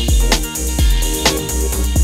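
Background music with a steady drum beat, about two beats a second, over a heavy bass.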